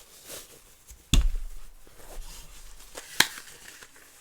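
Unboxing handling noises from a tablet stand and its packaging: a faint rustle, then a heavy thud about a second in, and a sharp knock a little after three seconds.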